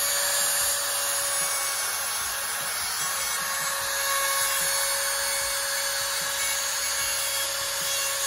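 Hand-held trim router with a straight bit running and cutting into hardwood: an even cutting hiss with a steady motor whine.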